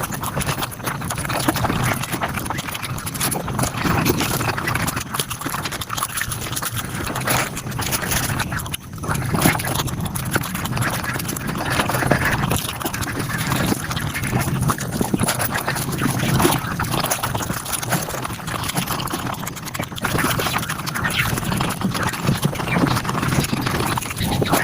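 Mukbang eating sounds of chewing and mouth noises, sped up fivefold into a dense, rapid run of clicks and smacks.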